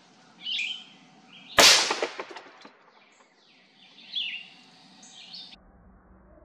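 A single suppressed 25 Creedmoor rifle shot, heard at the gel blocks as one sharp crack about one and a half seconds in, with a short fading tail as the bullet strikes the gel. Birds chirp faintly before and after it.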